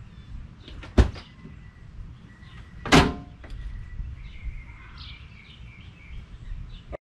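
Two sharp knocks about two seconds apart, followed by small birds chirping over a steady low outdoor rumble.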